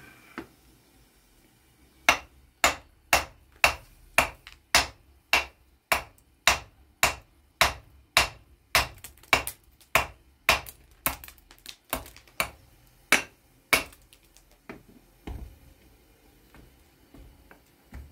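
A hammer striking a large stone to trim it, with sharp blows at about two a second, some two dozen in a row, stopping a little past the middle. A dull thump and a few faint knocks follow.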